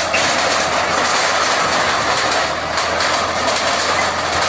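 Backhoe loader's diesel engine running under load, with a continuous clatter and crunching of wooden planks and sheet metal as the bucket pushes over a shed.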